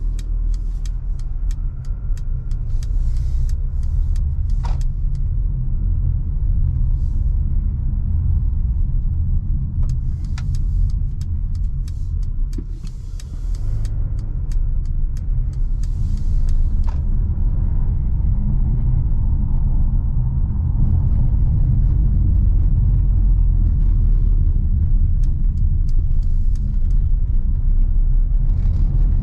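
A 2021 Mercedes GLA with the 1.3-litre turbo four (163 hp) on the move: a steady low rumble of engine and road noise, with scattered light ticks in the first half. It gets a little louder from about seventeen seconds in.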